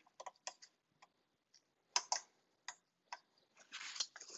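Scattered light clicks and taps of gloved hands and a hose fitting being worked loose on a hose at the back of a car engine, with a brief rustle near the end.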